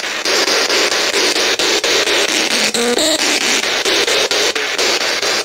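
Spirit box sweeping through radio stations, played through a small portable speaker: loud static hiss chopped into rapid, even steps as the tuner jumps from channel to channel, with a brief fragment of tone or voice about three seconds in.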